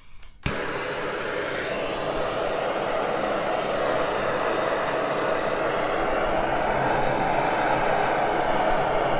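Trigger-start gas torch clicking and lighting about half a second in, then burning with a steady rushing flame as it heats a copper pipe sweat joint for soldering.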